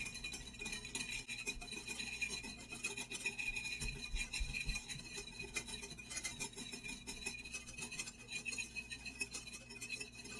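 Stainless steel wire whisk beating an oil-and-vinegar dressing in a ceramic bowl: a quick, steady run of light scraping and ticking as the tines sweep the bowl through the liquid.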